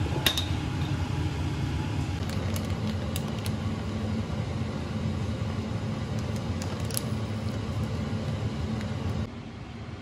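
Steady low kitchen hum as a pot of water heats on an induction hob, with a few light clicks and plastic-bag crinkles from a bag of dry macaroni being handled. The hum drops away suddenly about nine seconds in.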